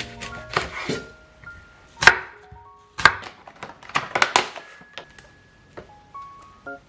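Knife chopping vegetables on a cutting board: a series of irregular knocks, the sharpest about two seconds in and a quick cluster around four seconds, with light background music.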